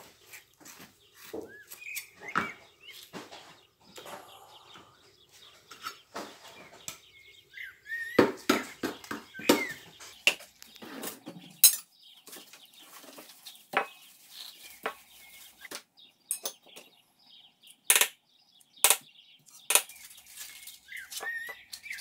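A kitchen knife and utensils knock, tap and scrape on a plastic cutting board and bowl as avocados are cut open and emptied for guacamole. The clicks and knocks come irregularly, loudest about eight to ten seconds in and again near the end, with a few short high squeaks among them.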